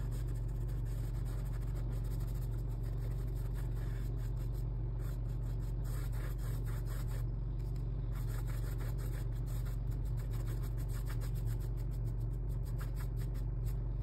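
Flat paintbrush dragging acrylic paint across canvas: many quick, light scratching and rubbing strokes of the bristles, over a steady low hum.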